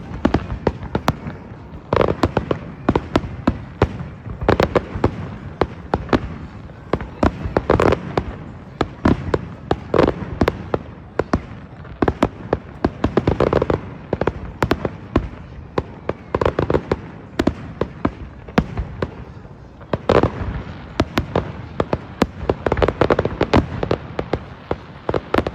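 Fireworks display: a steady stream of sharp bangs and crackles, with louder clusters of bursts every few seconds.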